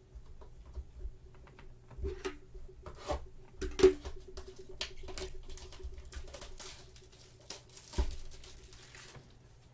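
Cardboard trading-card blaster box handled with gloved hands: scratching, rustling and clicking of the cardboard, with a sharper knock about four seconds in and another about eight seconds in.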